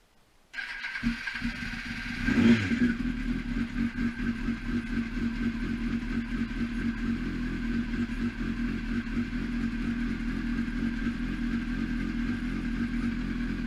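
Kawasaki ZX-10R inline-four motorcycle engine started: it cranks over about half a second in, catches with a brief rev about two seconds in, then settles into a steady idle.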